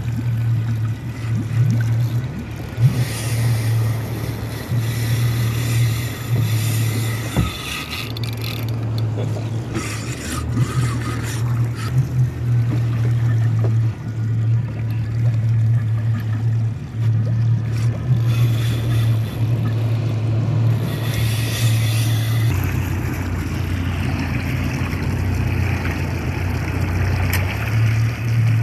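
Boat motor running steadily underway, a low hum, with water rushing and splashing past the hull.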